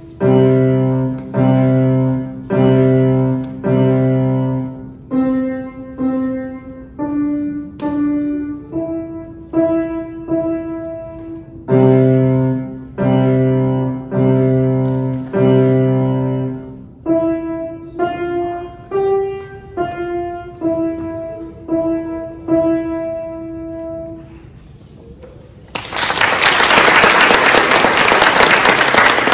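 Grand piano playing a slow, simple piece in evenly paced separate notes and chords, each struck and left to die away, ending on a held note. Near the end the audience starts applauding, louder than the piano.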